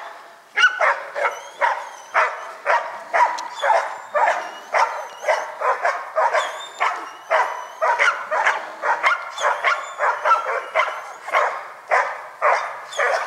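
Hog-hunting bay dog barking steadily at a big wild boar, about two barks a second: the bay that means the hog is stopped and held.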